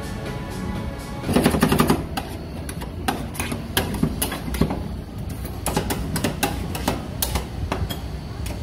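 Metal spatula blades chopping and tapping ice cream on a stainless steel cold plate: a fast run of clattering strikes about a second in, then irregular single chops. Background music plays under it.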